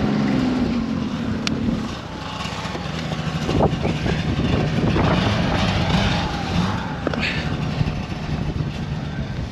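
Snowmobile engine running steadily, its note dropping to a lower, steady idle about two seconds in as the machine comes to a stop. Strong wind buffets the microphone throughout.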